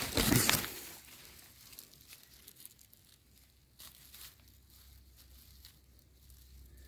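Undergrowth and twigs rustling and crackling as someone moves through thicket, loudest in the first second, then faint scattered crackles.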